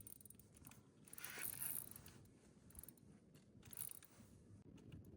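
Faint, scratchy rustling in a few short bursts: handling noise from the angler's gear and clothing while he fights a fish on the line.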